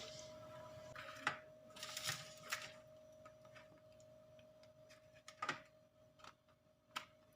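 Faint kitchen handling sounds during baking: about five scattered clicks and knocks, over a steady faint hum.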